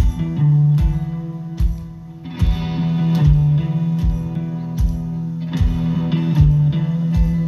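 Live band playing amplified music: electric guitars and bass over drums, with a drum hit about every 0.8 seconds.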